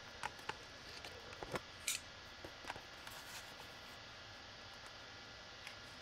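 Scattered light clicks and taps in the first few seconds, the sharpest just before two seconds in, over a faint steady hiss.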